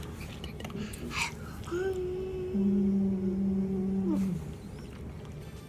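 Two voices hold a long, steady vocal note together for about two seconds, one higher and one lower, in a playful hum between a man and a small child.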